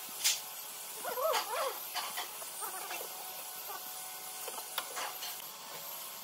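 Clicks and small rattles from a steel tape measure being handled against a wooden board, with a sharp click about a third of a second in and another near the end. About a second in there is a brief wavering whine.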